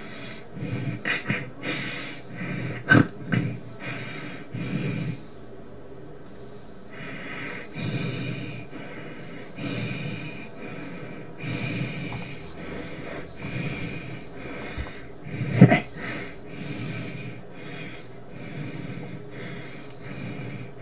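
Heavy breathing: long, noisy breaths in and out, one every second or two, with a short, sharp, loud catch about three seconds in and a louder one about three-quarters of the way through.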